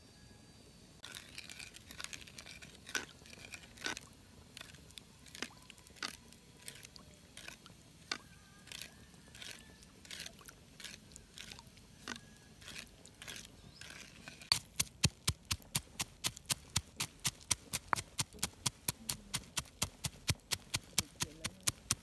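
A metal spoon stirring and clicking against a coconut-shell bowl of chili-garlic sauce, in irregular clicks. About halfway through, a stone pestle begins pounding peanuts in a stone mortar, with louder, steady strikes about three a second.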